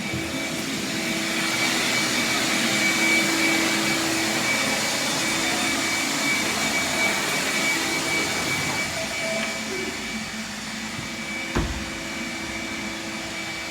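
Vacuum cleaner running steadily, a continuous rush of air with a steady motor whine, easing slightly in loudness partway through. A single knock or thump about eleven and a half seconds in.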